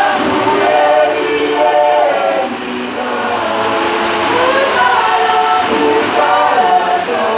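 A crowd of voices singing together in long held notes, phrase after phrase, over a steady hiss.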